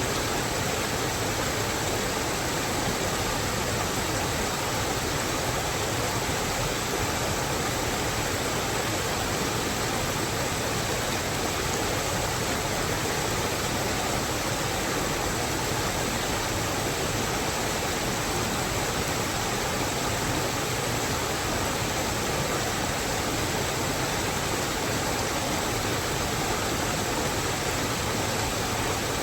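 Steady rushing of water, an even hiss that does not change, with no single event standing out.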